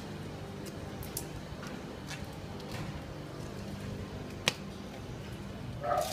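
Steady hum of a factory workroom, with light scattered clicks of circuit boards and parts being handled on a workbench and one sharp click about four and a half seconds in.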